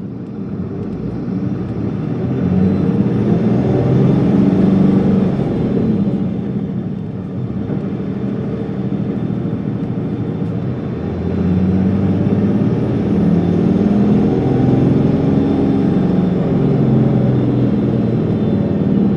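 Isuzu Erga city bus's diesel engine heard from inside the cabin, revving up under load, easing off about seven seconds in, then pulling again. A faint high whine rises and falls with each pull.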